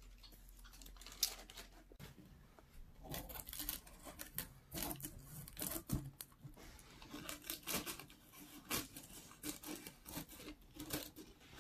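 Scissors snipping through tissue paper along the edge of a cardboard box: a run of short, crisp, irregular cuts with paper rustling, growing busier from about three seconds in.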